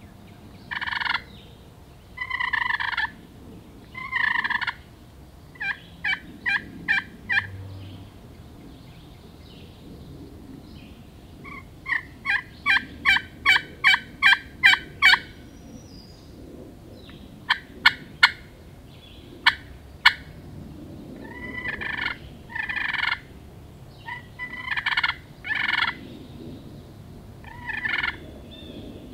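Wild turkey gobblers gobbling again and again, each gobble a short rattling call, with runs of quick, evenly spaced yelping notes between them, the longest about a dozen notes.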